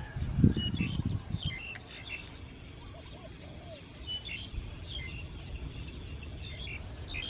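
Birds chirping in short, high clusters, with a low rumble that is strongest in the first second and a half.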